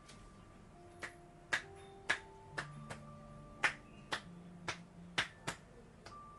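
Sharp clapping clicks of a masseuse's hand strikes on the shoulders and neck, made with palms pressed together, about ten irregular strikes starting about a second in. Soft background music with held notes plays under them.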